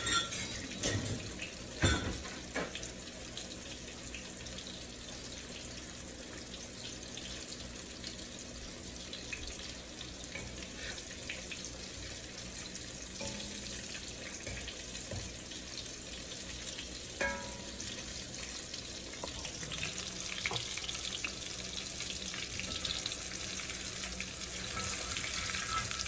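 Chicken nuggets frying in oil in a pan: a steady sizzling hiss, with a few knocks of a utensil against the pan in the first seconds and once more later.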